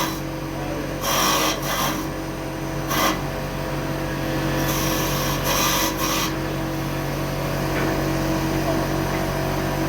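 CNC wood lathe running with a steady motor hum, with a few short hissing bursts of cutting noise as the tool works the wood.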